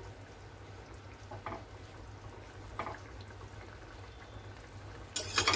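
Egg-curry gravy simmering in a kadhai on a gas stove, a low bubbling with a couple of faint spatula touches, and a brief louder noise near the end.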